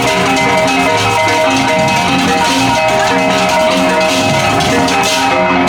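Balinese baleganjur gamelan playing loudly: gong and kettle-gong tones ring on, held over a dense, rapid clatter of cymbals and drums.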